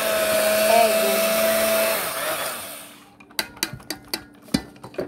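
Electric hand mixer running steadily with its beaters in a thick cookie dough in a metal bowl, then switched off about two seconds in and winding down over about a second. A series of sharp clicks and knocks follows near the end.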